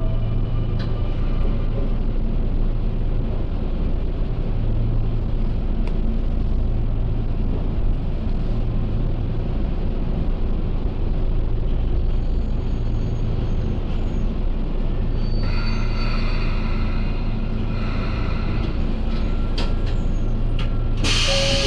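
Sotetsu electric commuter train running with a steady low rumble. About three-quarters through, several steady high tones join in, and near the end a loud hiss of air starts.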